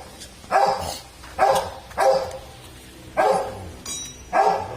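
A dog barking repeatedly, five short barks about a second apart.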